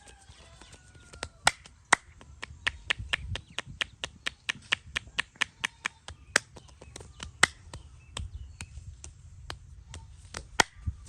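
Massager's hands striking and clicking in quick rhythmic percussion during a head and back massage: sharp smacks about four a second, thinning out after the middle with a last loud one near the end.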